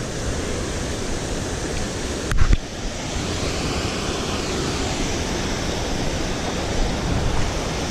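Steady rushing noise of creek water pouring over a low dam, with one short thump about two and a half seconds in.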